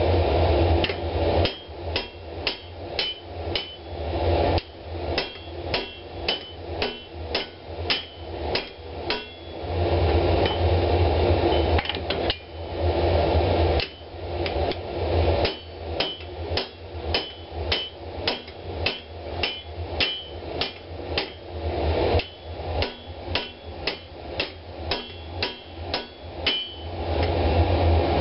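Hand hammer striking red-hot steel on an anvil while forging a tomahawk head: about three blows a second, each with a short metallic ring. The blows come in runs of several seconds, with a steady low rushing noise in the pauses between them.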